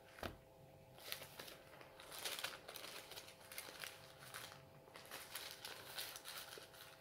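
Thin Bible pages being leafed through: a run of quick rustles and crinkles with a few sharp clicks.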